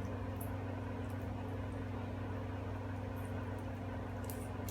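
Steady low mechanical hum, like a motor or engine running, with a few faint light clicks.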